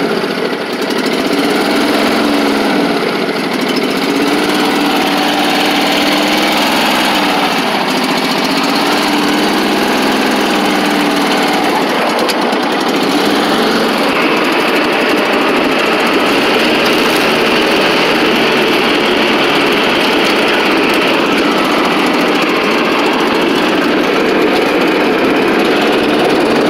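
Riding lawn mower's small gasoline engine running steadily.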